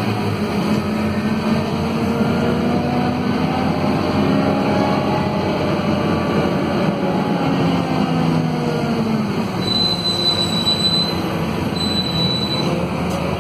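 Scania DC9 five-cylinder diesel of a Scania K230UB city bus running under way, heard from inside the bus, with its pitch slowly rising and then falling. Two short high-pitched tones sound near the end.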